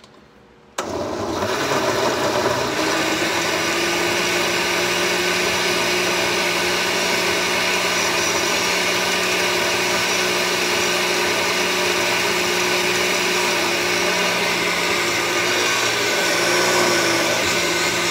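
Countertop blender switched on about a second in and running steadily, blending raw oats, banana slices, strawberries and water into a smoothie; it cuts off at the very end.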